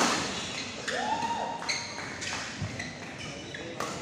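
Badminton rally: sharp cracks of rackets striking a shuttlecock about once a second, with a shoe squeaking on the court floor about a second in.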